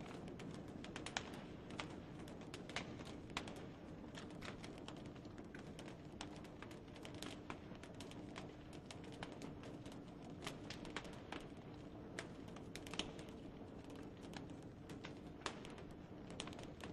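Burning Christmas trees, conifer branches and needles crackling with irregular sharp pops over a steady faint rush and low hum.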